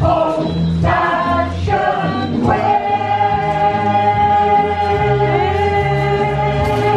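Music with singing voices holding long notes over a bass line that moves in steps.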